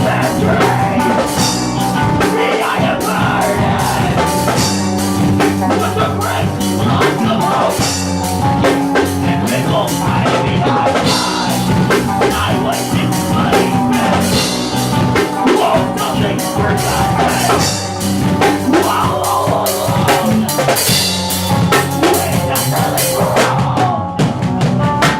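Live rock band playing a song, driven by a drum kit keeping a steady beat, at full loud level.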